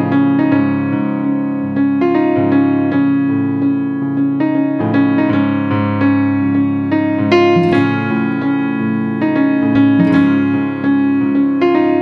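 Background music played on a keyboard, with piano notes struck over held chords.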